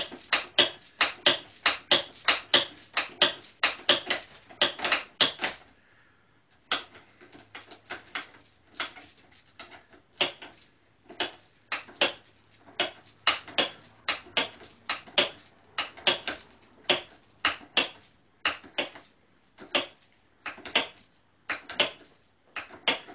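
Ratchet wrench clicking in quick, regular strokes, about three a second, as a long bolt at a motorcycle's handlebar clamp is wound in. There is a short pause about five and a half seconds in.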